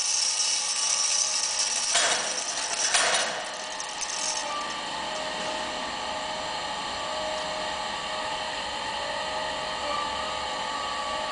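Large electric riveting machine running, a steady mechanical hum with a few steady tones. Two sharp knocks come about two and three seconds in, after which the running noise settles a little quieter.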